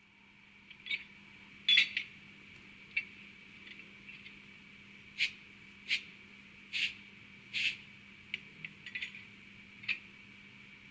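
Recorded coupling sound of an ÖBB 1010 electric locomotive, played by a ZIMO MS500 sound decoder through a tiny speaker in an N-scale model: a dozen or so sharp metallic clanks and clinks, the loudest about two seconds in, over a steady hum.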